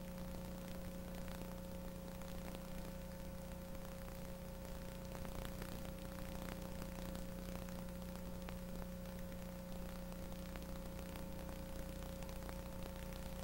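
Steady low electrical hum with hiss and faint scattered crackles, and no programme sound: the blank stretch of a taped TV broadcast at its commercial break.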